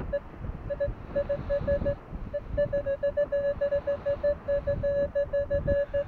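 Minelab Equinox 800 metal detector giving its target tone: a rapid string of short beeps at one steady pitch, some running together into longer notes, signalling a buried target that reads 15–16 on the display. Wind rumbles on the microphone underneath.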